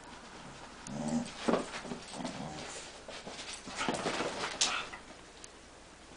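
Dogs at play making short growls and yips, in two bouts: one about a second in, a louder one around four seconds in.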